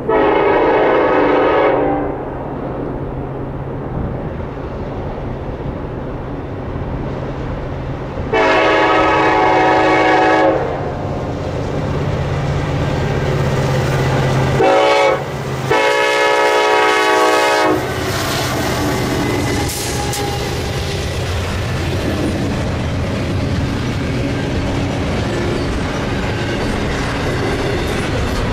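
Diesel freight locomotive sounding its horn in the grade-crossing pattern (long, long, short, long) over the steady drone of its engine, signalling its approach to a crossing. After the last blast, the train's cars roll past with a steady clatter of wheels on rail.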